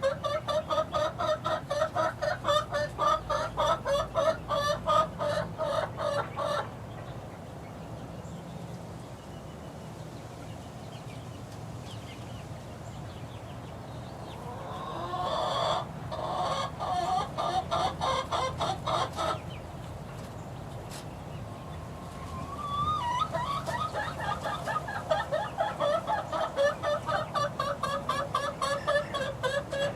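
A flock of six-week-old chicks peeping in rapid, repeated chirps, several a second. The calling dies down for a few seconds twice and then picks up again.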